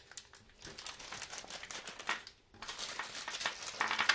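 Small plastic bag crinkling and rustling in the hand as steel ball bearings are taken out of it, in two spells of dense crackling with a short break about two and a half seconds in.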